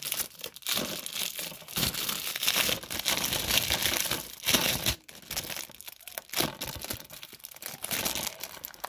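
Clear plastic wrap crinkling and rustling as it is handled, in irregular crackles with a brief pause about halfway through.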